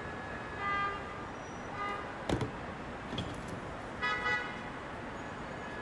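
Three short honk-like tones, a little under two seconds apart, with a few sharp clicks between them over a steady hiss.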